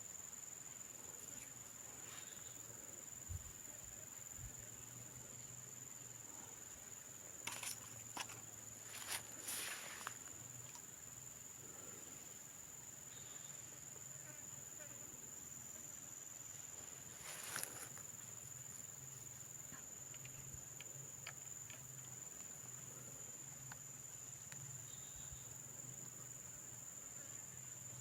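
Insects droning in one steady, high-pitched tone, with a few brief rustling or handling noises a third of the way in and again past the halfway point.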